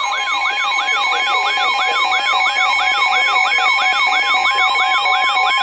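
Broadcast emergency alert tone: a loud electronic siren-like sweep rising again and again, about three and a half times a second, over a steady high beep and a pulsing tone.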